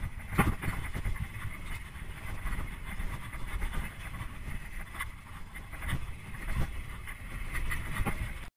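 Trek Remedy 8 full-suspension mountain bike ridden fast down a dirt and gravel trail: tyres rolling over loose ground and wind on the camera microphone, with scattered sharp knocks and rattles from the bike over bumps. The sound cuts off suddenly near the end.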